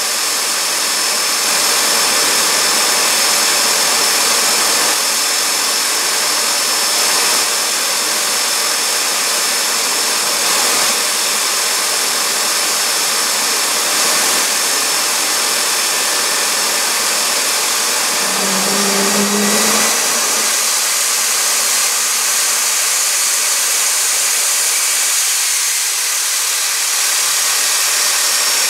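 Fairchild J44 turbojet running steadily: a loud rushing roar with a thin, steady high-pitched turbine whine on top.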